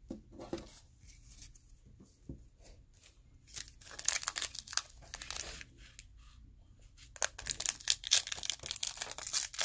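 Score football card pack wrapper being torn open and crinkled by hand. Light handling sounds come first, then two spells of crackling, about three and a half seconds in and again from about seven seconds.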